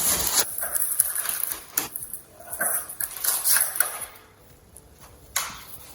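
Packaging rustling and crinkling in irregular bursts as a CNC router spindle is taken out of its wrapping, with a sharp knock near the end.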